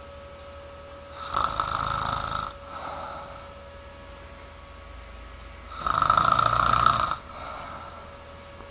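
A man snoring in his sleep: two loud snores about four and a half seconds apart, each followed by a shorter, softer breath, with a faint steady hum underneath.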